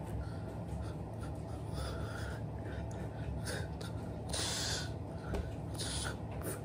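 Steady low room hum, with a few short hissy breaths and rustles of hands and clothing from a person signing; the clearest puffs come about four and six seconds in.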